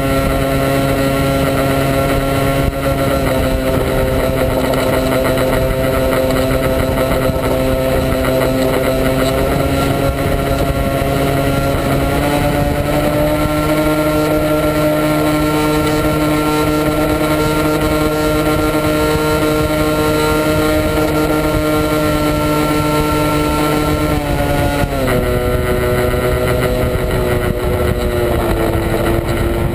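RC model airplane's motor and propeller running steadily, heard from on board with air rushing past. The pitch steps up about twelve seconds in as the throttle is opened, then drops about twenty-five seconds in and again a little near the end as it is eased back.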